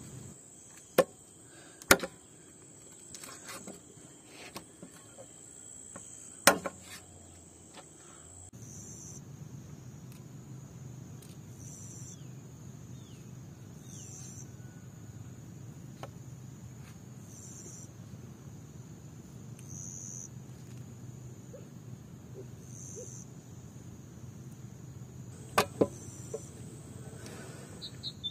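Crickets chirping steadily, with a few sharp knocks of a large kitchen knife striking a wooden cutting board while a raw chicken is cut up: two early on, one about six seconds in, and a quick pair near the end.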